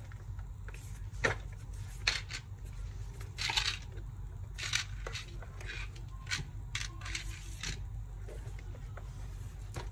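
Irregular small clicks, taps and short scrapes of hands and tools working on a laptop's plastic case, over a steady low hum.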